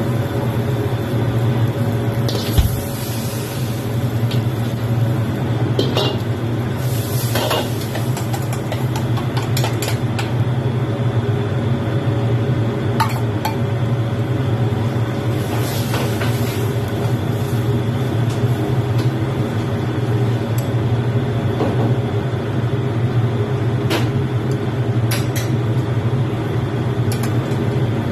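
Metal wok ladle scraping and clinking against a ceramic plate as stir-fried noodles are served, in scattered taps and scrapes, over a steady low kitchen hum.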